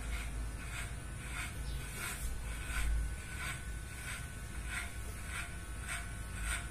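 Hair being cut close to the head: a run of short, crisp cutting sounds, about two or three a second, over a low steady hum.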